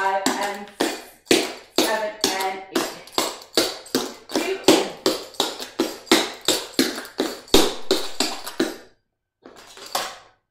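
Clogging shoes with taps striking a hard wood-look floor in a quick even rhythm, about three strikes a second, dancing the McNamara clogging step. The strikes stop about nine seconds in, then a few more come near the end.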